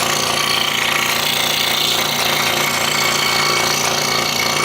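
Scroll saw running steadily with a rapid buzzing chatter as its blade cuts through a wooden puzzle panel.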